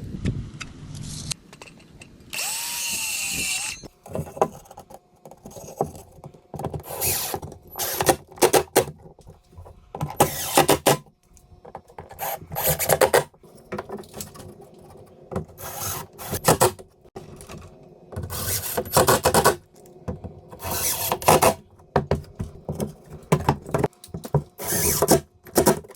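A power drill driving screws into wood backing for a drywall patch, running in many short bursts of a second or less with pauses between.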